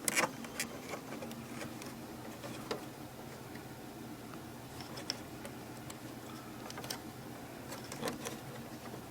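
Scattered faint clicks and taps of hands handling the plastic parts of an inkjet printer, over a steady low hum.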